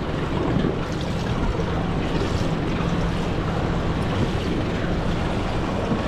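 Wind buffeting the microphone and water washing against a small boat's hull as it drifts, with a faint steady low hum underneath.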